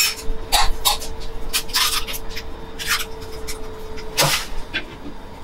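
Eggs being tapped and cracked on the rim of a stainless steel mixing bowl: a string of short sharp clicks and knocks, the loudest about four seconds in. A steady hum runs underneath.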